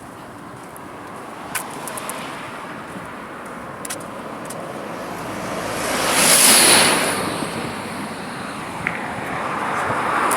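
A car passes on the highway: its tyre and engine noise swells to a peak about six to seven seconds in, with a brief high whine, then fades. Another vehicle approaches near the end.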